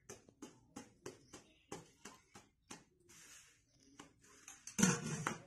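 Steel utensils and a clay pot being handled: a run of light clinks and knocks, two or three a second, then a louder scraping clatter near the end.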